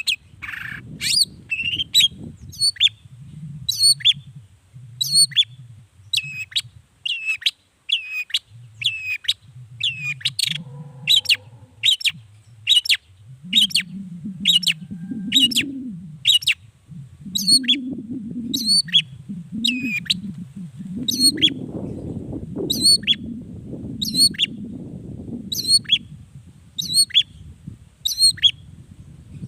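Long-tailed shrike (cendet) calling in a long series of short, sharp, repeated notes, about one a second. A low rumble runs beneath it.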